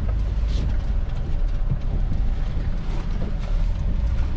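Truck running with a steady low rumble and road noise.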